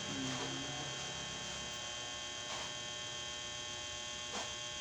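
Steady electrical hum made of several fixed tones, with two faint taps, one about halfway through and one near the end.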